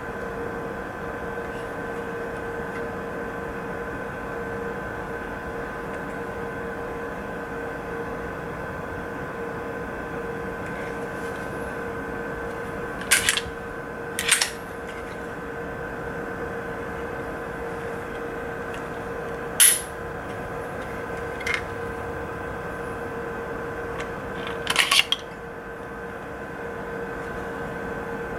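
Sharp metallic clicks and clacks of a Glock 43 pistol being field-stripped, as the slide comes off the frame and the recoil spring assembly is lifted out. There is one click about 13 seconds in, another a second later, one near 20 seconds, a faint one shortly after, and a quick cluster around 25 seconds, over a steady background hum.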